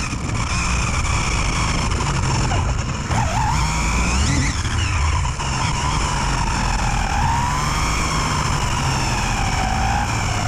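Electric RC car driving, heard from a camera mounted on the car: a motor and gear whine that rises and falls with the throttle over a steady rushing rumble from the tyres and air.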